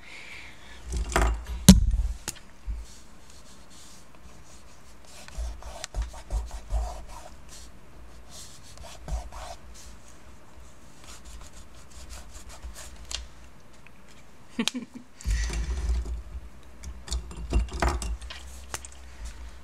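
A crayon rubbing and scraping over dried paint on paper. Knocks and bumps on the table are loudest about a second in and again near the end.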